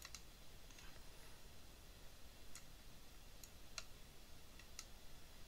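A few faint, isolated computer mouse clicks over near-silent room tone.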